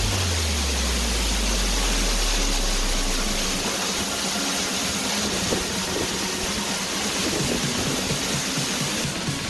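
Steady rushing roar of a waterfall, its falling water a loud, even hiss.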